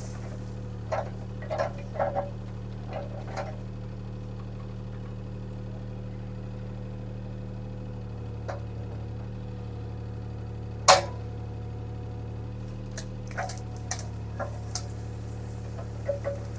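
Bobcat T300 skid steer's diesel engine running at a steady speed, with scattered short clicks and knocks over it and one louder sharp knock about eleven seconds in.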